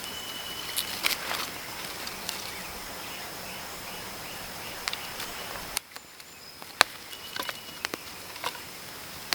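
Outdoor nature ambience: a steady high insect drone over an even hiss, with a run of short chirps and scattered sharp clicks. The background changes abruptly about six seconds in.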